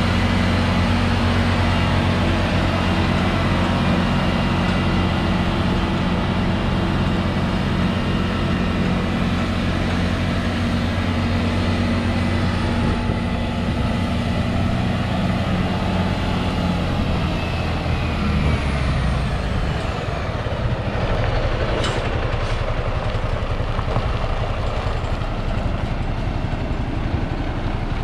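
Diesel engine of a Ford Cargo 3535M mixer truck running, with a steady note for the first two-thirds. The engine note then drops as the revs fall, while a faint high whine falls in pitch. Two short sharp sounds come about two-thirds of the way through, and the engine runs on at a lower, rougher note.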